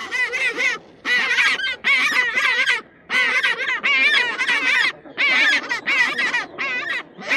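An animal calling over and over in wavering, quavering cries, each up to about a second long with short breaks between them.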